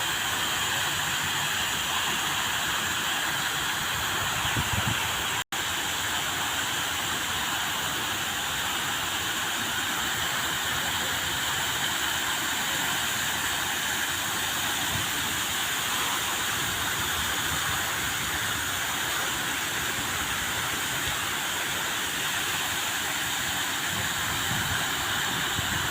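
Waterfall: water falling and splashing in a steady, even rush, with one brief cut-out about five seconds in.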